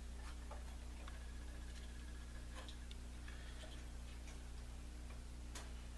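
Steady low electrical hum with a few faint, scattered clicks from small parts being handled.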